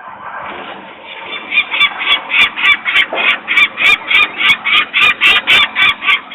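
Adult peregrine falcon giving the rapid, harsh 'kak-kak-kak' alarm call, about four loud calls a second, starting about a second and a half in; the parents are agitated by people working near the nest.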